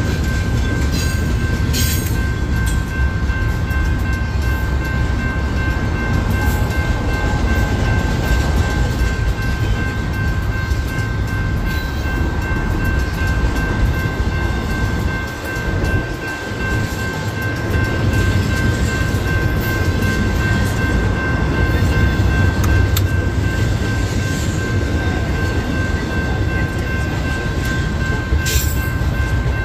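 Double-stack intermodal container well cars rolling past: a steady, loud rumble of steel wheels on rail with occasional clanks and a brief lull about halfway through. A steady high ringing tone sits over it throughout.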